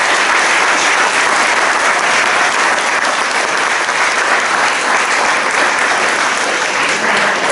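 Audience applauding steadily: dense, even clapping from a seated crowd after a performance.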